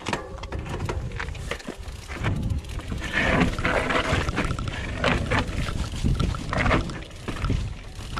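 Mountain bike rattling and knocking over rough rock on a fast descent, with tyres scraping on stone and wind rumbling on the camera's microphone.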